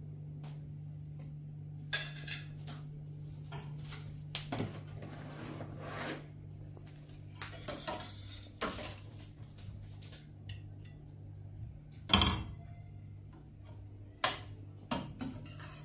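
Metal spoon scraping and clinking against stainless steel pots as food is served out, with scattered light clatters and a sharp clatter about twelve seconds in and again near the end. A steady low hum runs underneath.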